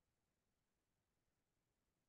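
Near silence: digital silence between narration, with no audible sound.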